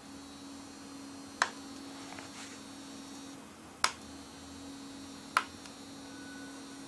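Three sharp clicks of the push buttons on a SINGCALL wireless call-button pager as they are pressed, over a steady low hum.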